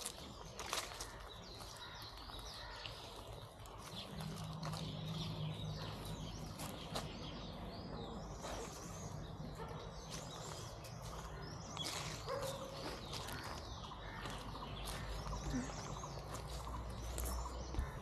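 Birds chirping and calling over faint outdoor ambience, with scattered clicks and a steady low hum that comes in about four seconds in.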